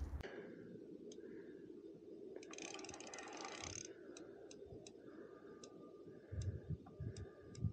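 Big-pit carp reel's clutch clicking as line is pulled from the spool: a rapid run of clicks about two and a half seconds in, then single ticks roughly every half second, with a few low handling thumps near the end.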